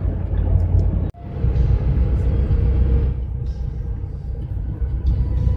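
Steady low rumble of the GAZelle van's engine and tyres heard from inside the cab while cruising on the highway, briefly cut off about a second in.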